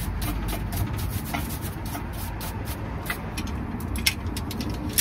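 Quick metal clicks and clatter from bungeoppang cast-iron fish molds being worked by hand, over a steady low rumble. The clicks come thick at first and more spaced later, with one sharper click about four seconds in.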